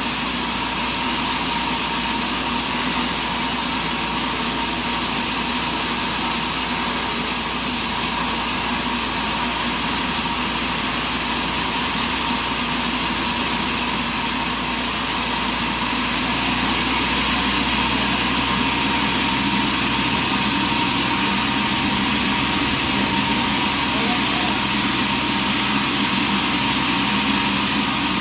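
Sawmill engine running steadily, with a change in its tone about sixteen seconds in.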